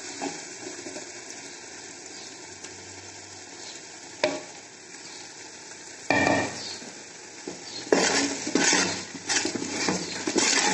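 Spiced masala paste sizzling as it meets hot oil and fried onions in a metal pot. From about six seconds in, a steel spatula scrapes and clatters against the pot as the paste is stirred in, with a run of short strokes near the end.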